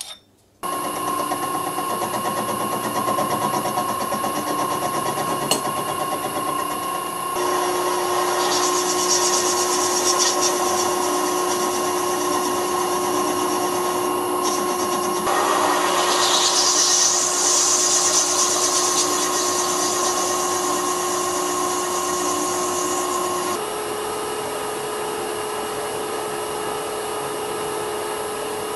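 Vintage Karger metal lathe running while a carbide-insert turning tool cuts a 60-degree point on a metal drive centre: a steady machine hum with a hiss of cutting over it. The sound shifts abruptly several times.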